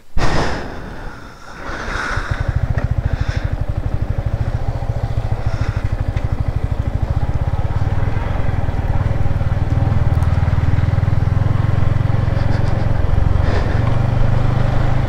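Yamaha MT-15's single-cylinder engine pulling away at low speed and running steadily, its fast low pulsing slowly growing louder as the bike rolls on. A loud, sudden burst of noise comes right at the start, just before the engine settles in.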